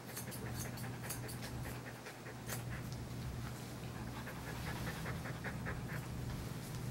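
A muzzled dog panting in quick regular breaths, with a run of sharp clicks in the first couple of seconds and a low steady hum underneath.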